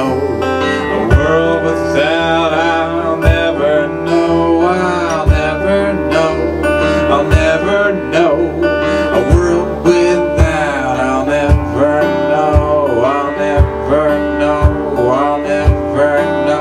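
A man singing and playing a strummed acoustic guitar, with a kick drum thumping a steady beat about once a second.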